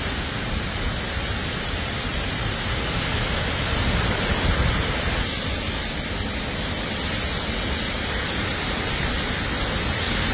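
Severe thunderstorm: strong wind and heavy rain making a loud, steady rush of noise. The sound shifts slightly about five seconds in.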